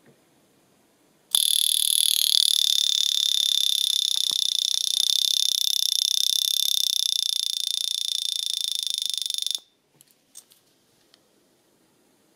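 Vulcain Cricket calibre 120 wrist alarm watch ringing: the alarm hammer rapidly strikes the pin on the double stainless steel caseback, making a loud, high-pitched buzz that lasts about eight seconds and cuts off suddenly. A few faint clicks follow.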